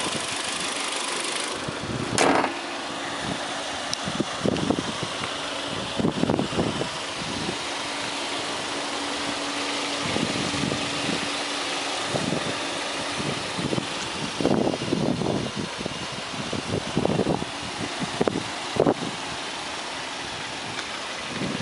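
Kia Cerato's 2.0-litre DOHC 16-valve four-cylinder engine idling steadily, with a few short irregular bumps over it.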